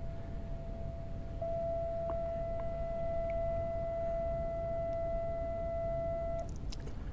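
A horn sounds one long steady note, faint at first, growing louder about a second and a half in and holding for about five seconds before it cuts off, over a low steady rumble. Near the end, water poured from a plastic bottle spatters briefly.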